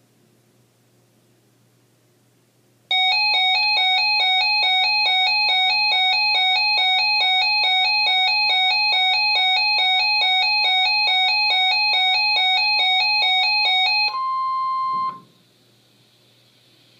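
Electronic emergency alert tone from a weather radio broadcast, signalling the start of a severe thunderstorm watch alert. After about three seconds of faint hiss, a loud two-tone warble alternates about three times a second for roughly eleven seconds. It then switches to a steady single tone for about a second and cuts off.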